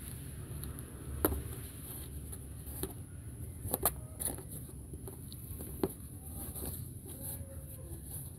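Kittens play-fighting on a blanket: soft scuffling of paws, with a few sharp knocks about a second in, around four seconds in and near six seconds, over a steady low hum.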